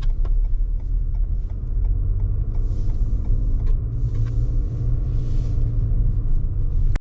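Car driving on the road: a steady low rumble of road and engine noise with faint scattered ticks, cutting off suddenly at the end.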